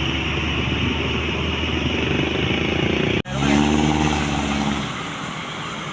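Road traffic noise with a vehicle engine running. About three seconds in the sound cuts out for an instant, then a steady, deeper engine hum takes over and drops away about five seconds in.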